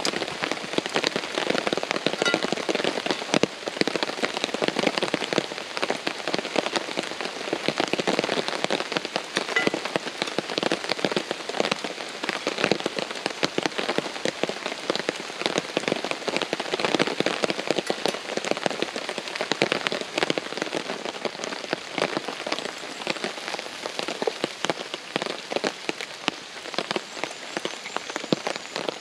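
Heavy rain drumming on a tarp shelter: a dense, steady patter of many drop impacts.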